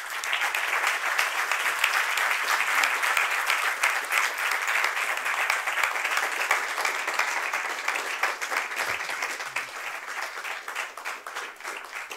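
Audience applauding, starting at once and fading out over the last few seconds.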